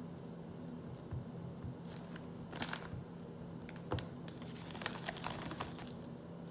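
A plastic zip-top bag holding ice and salt being handled: a run of short, irregular crinkles and clicks, busiest in the second half, over a faint steady hum.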